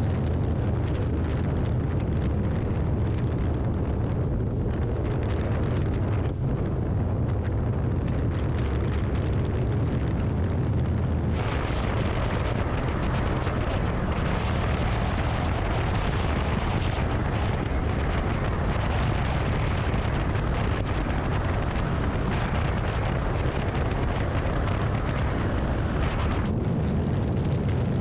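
Motorcycle riding at highway speed: a steady low rumble of wind buffeting the microphone, mixed with engine and road noise. From about eleven seconds in until near the end, a brighter rushing hiss joins the rumble.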